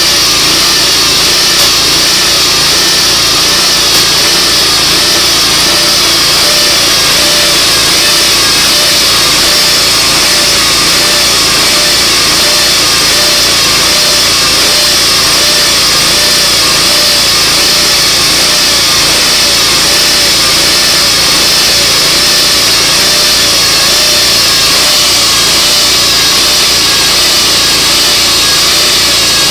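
Portable sawmill running steadily under its engine's power while it saws slabs from a mesquite log.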